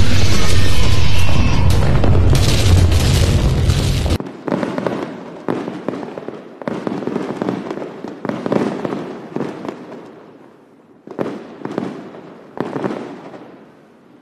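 Fireworks: a loud, dense crackling barrage for about four seconds, then a string of separate firework bursts, each fading out, about one a second.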